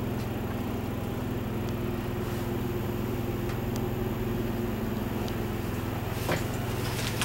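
Steady low mechanical hum made of several held pitches, with a few faint clicks and a soft knock about six seconds in.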